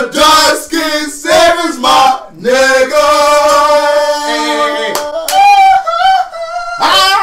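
Several men singing loudly together, drawn out over long held notes, with two voices on different pitches at once near the middle.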